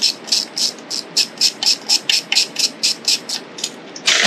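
Ratcheting screwdriver clicking steadily, about five sharp clicks a second, as a screw is turned out on a small engine; the clicking stops near the end, followed by one louder click.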